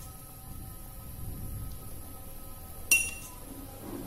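A metal kitchen utensil strikes a dish once about three seconds in: a sharp clink with a short, bright ring, over a low, steady background noise.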